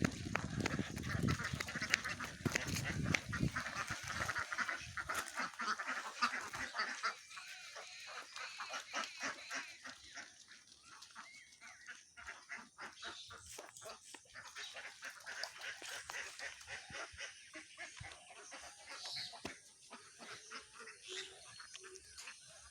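A flock of ducks quacking and calling over one another, densest and loudest for the first several seconds, then thinning to scattered, fainter calls.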